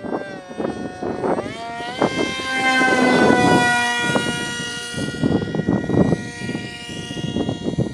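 Electric motor and propeller of a homemade foam RC model plane whining in flight. The pitch climbs as the throttle opens about a second and a half in. The plane passes close around three seconds in and its whine falls away afterwards. Wind buffets the microphone throughout.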